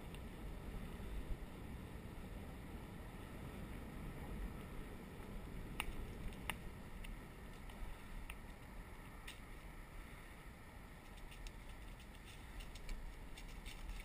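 Cannondale bicycle rolling along a paved path: a steady low rumble of tyre and wind noise on the camera, with two sharp clicks about six seconds in and a scatter of small ticks near the end.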